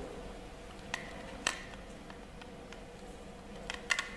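Sharp clicks from an HTC Sensation XE phone's back cover being fitted and snapped into place: two single clicks about a second in, then a quick run of two or three near the end.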